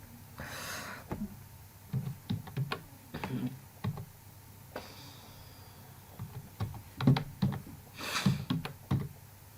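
Typing on a computer keyboard: irregular key clicks in short runs, with two brief rushes of hissy noise, one about half a second in and one near the end.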